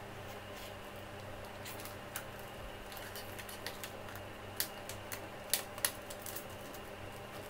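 Thin plastic bottle pieces being handled and pressed together, giving irregular light clicks and crackles, with the sharpest clicks a little past halfway. A faint steady hum runs underneath.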